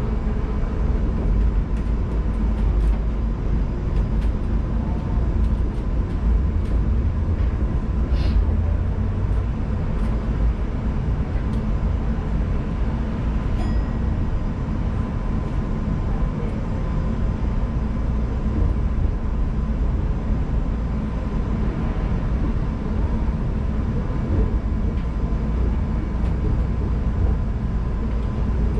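Chiba Urban Monorail 1000 Series suspended monorail car running along its elevated track, heard from inside the cab: a steady low rumble with a faint steady whine and a few light clicks, about 8 and 14 seconds in.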